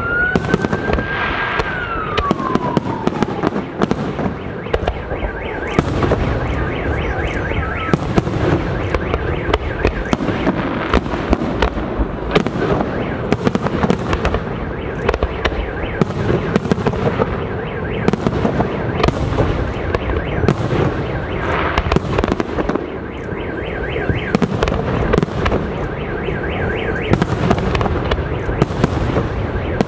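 Fireworks display: aerial shells banging in quick succession over continuous crackling. Near the start a whistle rises and then falls away.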